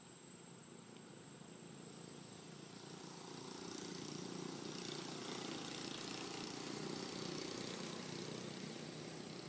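Engine of a motor vehicle running in the background, growing louder over the first few seconds and easing off a little near the end, with a faint steady high-pitched whine throughout.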